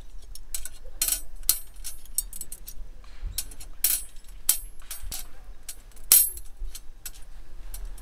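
Metal trivet rods of a HITAKI solo fire pit clinking against each other and against its metal frame as they are slotted into the frame's grooves. The clinks come in a string, some with a brief metallic ring, and the loudest is about six seconds in.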